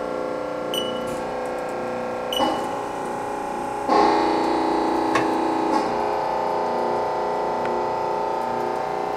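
Haas SL-20T CNC lathe's programmable tailstock being driven along its ways, with a steady whine made of several held tones. There are a few clicks, and a louder clunk about four seconds in where the pitch of the whine changes.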